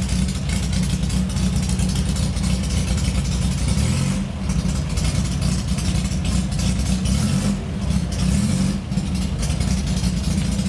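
Loud racing-car engine running close by at a rough, uneven idle, its level dipping briefly a few times.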